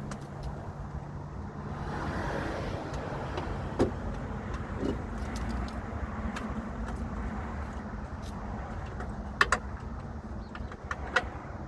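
A few sharp clicks and knocks from hands and tools working the old side mirror off a truck door, the loudest about nine and a half seconds in, over a steady low rumble.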